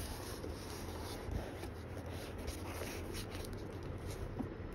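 Faint rustling of paper book pages being handled and smoothed flat under a hand, with no strong single sound.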